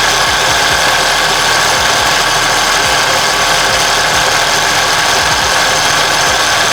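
Acura TL engine running up close with a steady mechanical whir and an irregular low rattle, while its power steering system sits low on fluid.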